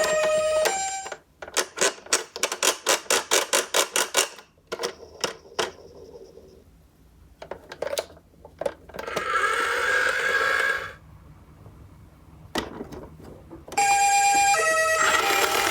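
Toy ambulance's electronic two-tone hi-lo siren (Japanese 'pee-po' pattern) beeping, then cutting off. A rapid run of sharp clicks follows, about four or five a second for three seconds, then scattered clicks. A noisy spell comes partway through, and near the end a siren starts up again over a loud hiss.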